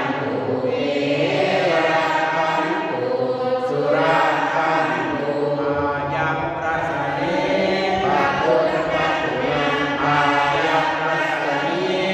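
A congregation chanting Thai Buddhist prayers in unison, with a man leading the chant into a microphone. The recitation goes on steadily, without pause.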